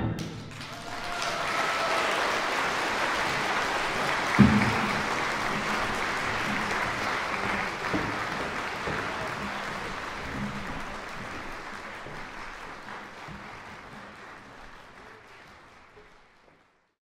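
Concert audience applauding. The applause builds over the first two seconds and then slowly fades out, with one brief louder burst about four and a half seconds in.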